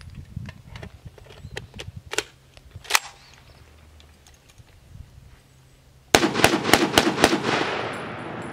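A few light metallic clicks as a magazine is loaded into an Ohio Ordnance BAR M1918A3, then about six seconds in a rapid string of about six .30-06 rifle shots in just over a second, with the echo trailing off.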